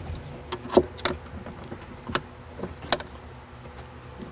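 A few separate sharp clicks and knocks of a hand tool and bolts against a bedliner-coated panel as the bolts are worked to seat into their T-nuts, the loudest about a second in and near three seconds in, over a faint steady hum.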